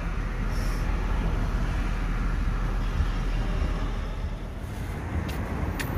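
Steady low rumble of a vehicle engine and traffic noise, heard from a car stopped at an intersection.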